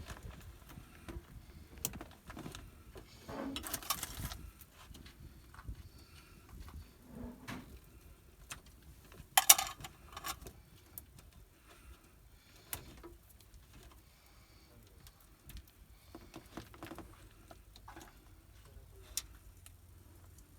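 Hands working on vehicle wiring with tools: scattered small clicks, taps and rustles. Two short, louder scraping noises come about four seconds in and again near the middle.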